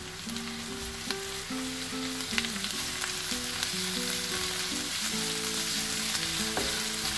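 Onions, whole spices and ginger-garlic paste sizzling in hot ghee in a deep nonstick pan, stirred with a wooden spatula that now and then scrapes and taps the pan.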